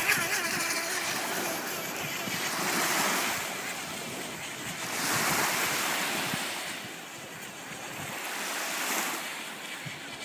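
Wind buffeting the microphone over the rush of water, swelling and easing in surges every few seconds.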